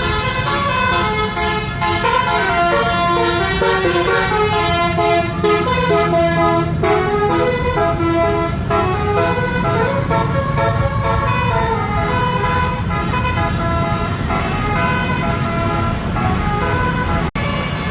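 A tour bus's basuri 'telolet' musical horn plays a tune in quick stepped notes over the low rumble of the bus. The sound breaks off for an instant near the end.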